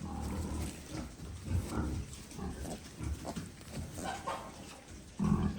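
Sow grunting: a run of short, low grunts, irregularly spaced, with a louder one near the end.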